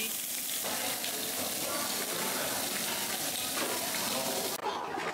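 Beef sizzling on a slotted tabletop grill plate over a barbecue burner: a steady hiss that cuts off suddenly near the end.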